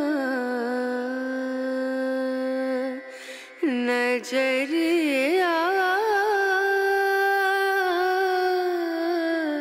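Background music: a single voice singing long, held notes that bend and glide between pitches, with a short break about three seconds in.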